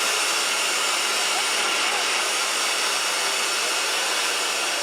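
Loud, steady rushing noise like a blower or fan, with faint voices under it.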